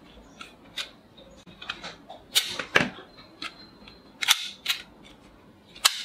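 Plastic toy revolver being cocked and fired with soft rubber-tipped bullets: a string of sharp plastic clicks and snaps, loudest as two pairs about two and a half and four and a half seconds in, and another just before the end.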